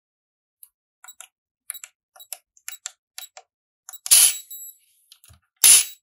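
Buttons on a Digilock Versa electronic keypad locker lock pressed in quick succession, giving a string of small clicks as a user code is entered to unlock it. About four seconds in, and again near the end, come two much louder, sharp, ringing clicks from the lock.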